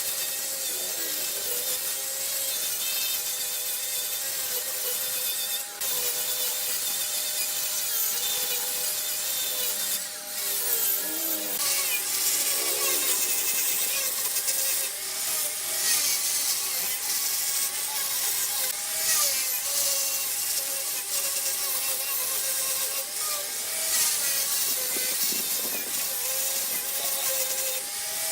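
Wood lathe running, with a turning tool cutting the spinning wood: a continuous hiss of cutting over the lathe's steady hum. The cutting breaks off briefly twice, about six and ten seconds in.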